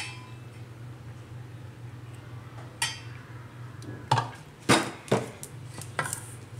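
Metal spoon clinking and scraping against a stainless steel bowl while stirring a thick chilli-garlic paste. There is a single clink at the start and another about three seconds in, then several quick clinks from about four seconds in, over a faint steady low hum.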